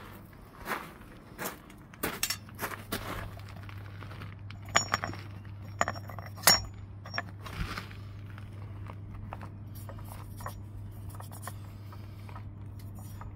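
Small metal pieces being handled, clinking and tapping against each other, with a few sharp ringing clinks about halfway through, over a steady low hum.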